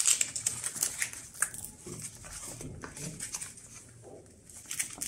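Handling noise as a lipo battery is strapped into an RC model plane's battery bay: the strap, wires and airframe rubbing and clicking in a string of small rustles and clicks.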